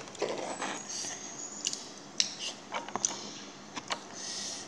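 Plastic tableware being handled: a handful of sharp, separate clicks and taps and soft rubbing as a yellow plastic food container is picked up and lifted.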